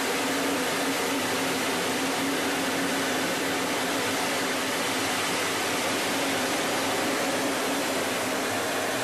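Steady rushing cockpit noise heard inside a jet fighter's canopy, airflow and air-conditioning hiss with a faint steady hum under it, unchanging throughout.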